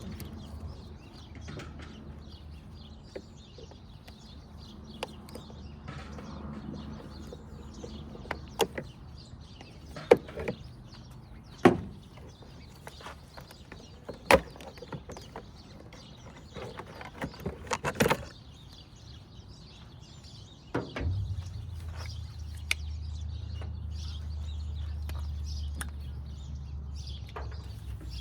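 Scattered sharp clicks and knocks of handling and tool work, over faint bird chirps; about two-thirds of the way through a low steady hum comes in and holds.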